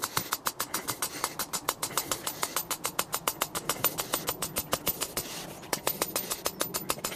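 Hammer blows on a steel earth rod driving it into the ground, a fast even run of sharp metallic strikes about seven a second, with a short break a little past halfway.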